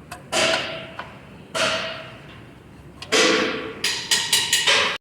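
Knocking and scraping work noises: three drawn-out scraping strokes, each fading over about a second, then a quick run of four knocks near the end.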